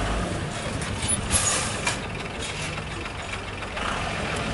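A vehicle engine running steadily, with a short hiss about a second and a half in.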